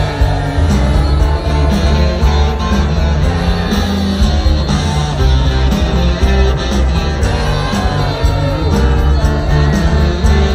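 A live band playing loud rock music through a concert sound system, with heavy bass, guitar and a singing voice, heard from within the crowd.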